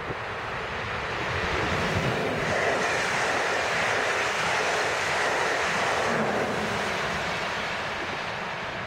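Passenger train passing close by at speed: a steady rushing rumble of wheels on rails and moving air that swells, holds for several seconds, then fades as it goes away.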